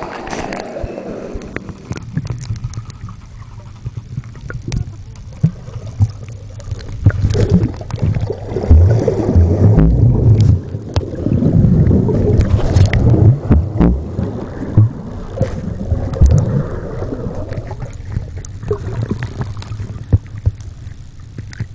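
Muffled sound of water recorded with the camera under the surface of a swimming pool: an uneven low rumble of moving water, with scattered clicks and knocks.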